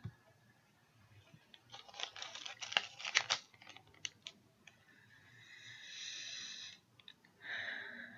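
A small plastic baggie crinkling and crackling as it is handled, then a long sniff of about two seconds through the nose at the bag's pepper, and a shorter sniff near the end.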